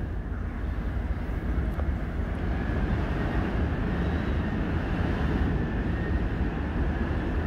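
Steady rumble and hum inside an aerial tramway cabin riding up its track cables, with no sudden events.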